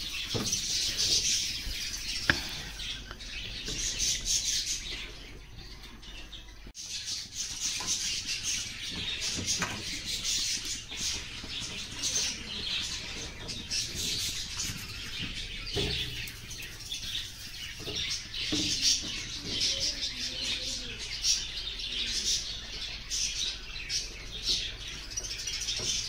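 Many small birds chirping and twittering continuously in the background, with a few sharp knocks of kitchen utensils.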